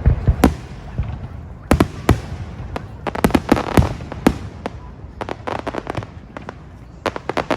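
Aerial fireworks going off in a rapid string of sharp bangs and crackles, several clustered bursts following one another.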